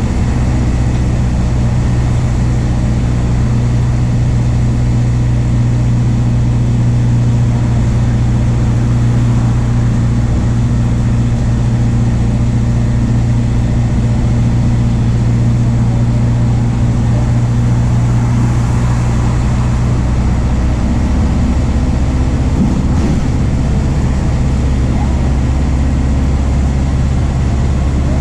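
MAN D0834 four-cylinder turbo diesel of a VW 17.230 OD bus running steadily under way, its note shifting slightly about two-thirds of the way through.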